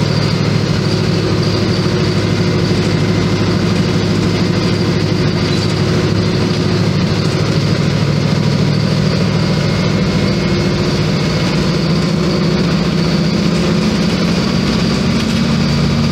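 Volkswagen 15.190 EOD bus's front-mounted diesel engine running under way, heard from inside the passenger cabin: a steady low drone whose pitch rises slightly near the end.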